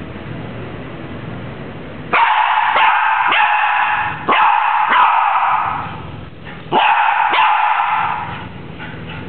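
A dog barking in three loud bouts of a few barks each, the first about two seconds in.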